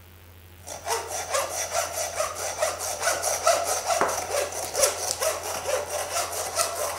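Butcher's hand bone saw cutting through a ram's hip bone to split the legs, in quick, even back-and-forth strokes that start just under a second in.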